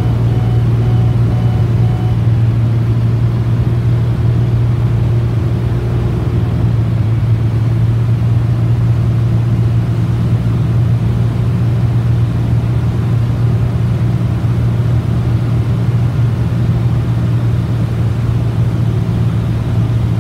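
Steady drone of a Cessna T210's turbocharged six-cylinder engine and propeller, heard inside the cabin during the descent. A faint repeated beeping tone sounds over it and stops about two seconds in.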